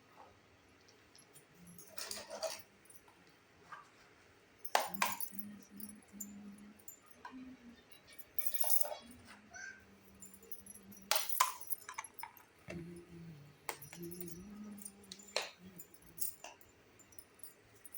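Small plastic toy kitchen pieces being handled and set down, giving scattered clicks and taps with a brief rustle of packaging, under a faint intermittent low hum.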